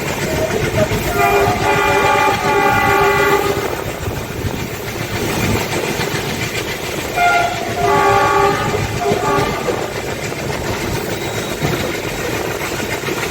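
ALCO diesel locomotive's horn sounding twice, the first blast about two and a half seconds long and the second about two seconds, over the steady running noise of the moving train.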